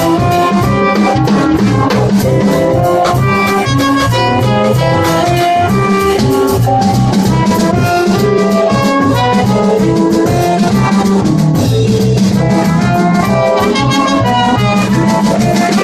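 Live jazz band playing: trumpet and trombone play a line together over drum kit and electric bass.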